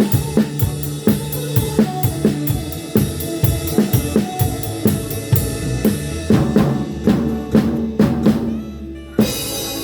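Drum kit playing a steady beat under held keyboard notes, breaking into a fill of rapid drum hits near the end and landing on a cymbal crash as the beat picks up again.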